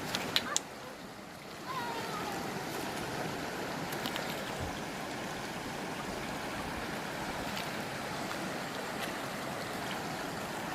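Mountain stream water flowing steadily over rocks, with a few short sharp sounds in the first second before the flow noise settles in.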